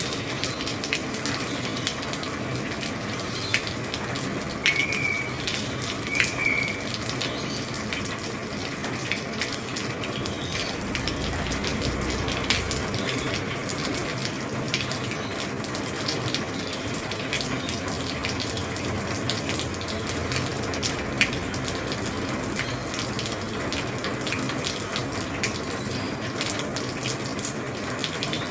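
Heavy rain falling steadily on an old roof: a constant hiss with many sharp ticks of single drops striking. Two brief high chirps come about five and six seconds in, and a short low rumble near the middle.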